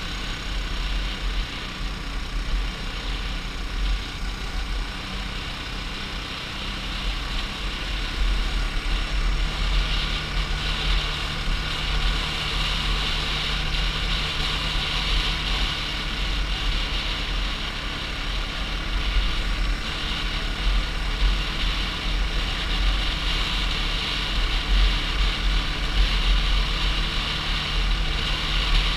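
Sport ATV engine running steadily while riding along a paved road, with wind buffeting the helmet microphone. The engine note gets louder about eight seconds in.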